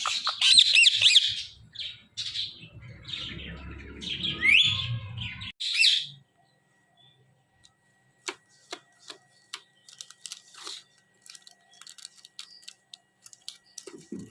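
Ringneck parrot chirping and squawking in quick, high calls for about the first six seconds. After a short pause, faint scattered clicks follow.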